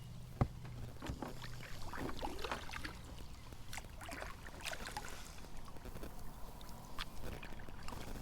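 A fishing kayak on the water: scattered knocks and clicks of gear handled against the hull, over a low steady hum.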